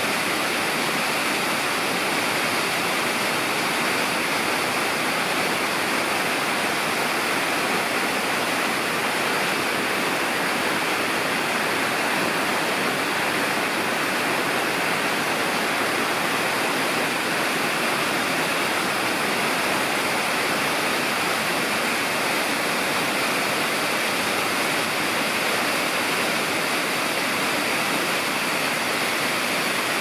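Hara Fudō Falls, a tall mountain waterfall, pouring down a rock face: a steady, unbroken rush of falling water.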